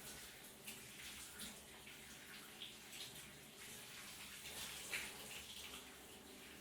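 Shower running, with water splashing and spattering irregularly. One louder splash comes about five seconds in.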